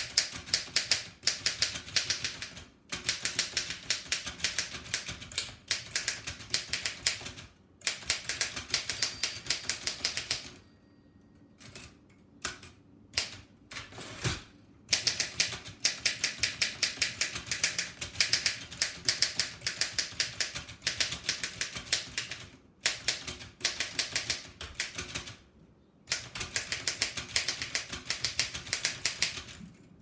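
Speed typing on a 1900 Densmore No. 4 typewriter: fast runs of sharp type-bar strikes, several a second. The runs break off a few times, and about a third of the way in there is a slower stretch of only a few scattered strikes before the fast typing starts again.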